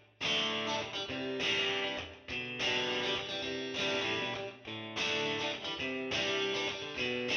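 Guitar music, with a new chord struck roughly every second.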